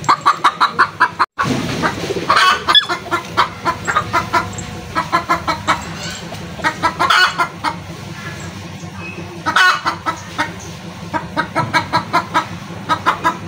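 Chickens clucking in quick runs of short calls, several a second, with a few longer, louder calls among them.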